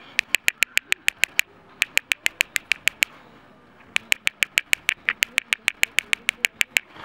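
Nuts knocked together in rapid, even taps, about eight sharp clicks a second, in three runs with short pauses between: the tapping that calls park squirrels.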